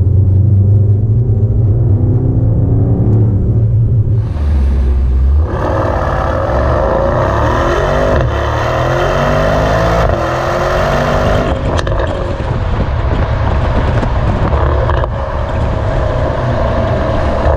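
Mercedes-AMG GT 63 S's 4.0-litre twin-turbo V8 under acceleration in Sport Plus mode, heard first from inside the cabin and then close at the quad exhaust tips. The engine note sweeps up in pitch several times in the middle, then settles into a steadier run with road noise near the end.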